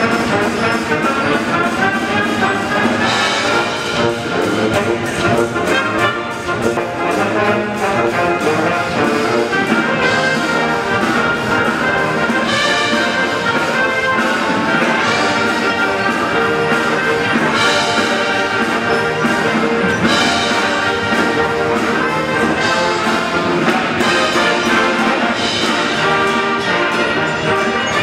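Military brass band playing, with full held brass chords and a few brief brighter accents along the way.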